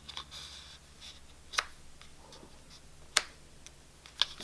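Handling of a small paper notebook and a photo card: three sharp clicks or taps over faint rustling of paper and plastic.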